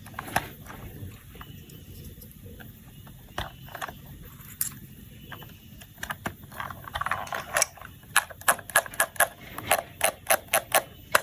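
Hard plastic toy parts clicking and tapping as they are handled. The clicks grow into a quick, fairly regular run of loud clicks, several a second, from about eight seconds in.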